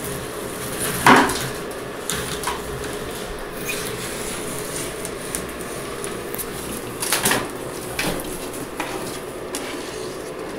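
Scattered sharp knocks and scrapes on wood as a black roughneck monitor climbs and scrambles over the branches and wooden ledges of its enclosure. The loudest knock comes about a second in and a cluster follows about seven seconds in, over a steady low hum.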